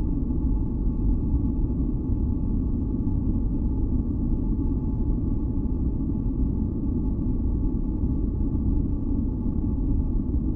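Steady, unchanging deep noise for sleep and masking, weighted toward the low end, with a few faint held tones above it.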